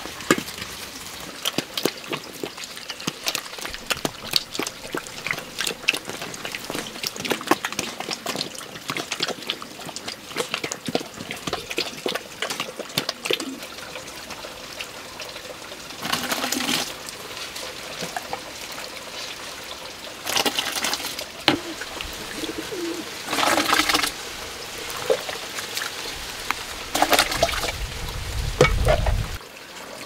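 Water splashing and trickling, dotted with many small clicks and knocks, with a few louder splashing spells of about a second each and a low rumble near the end.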